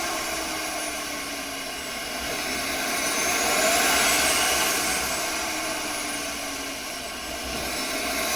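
Homemade twin-turbo furnace running under boost: a steady jet-like rush with a high turbocharger whine that glides up and down, the whole sound swelling about halfway through and easing off again.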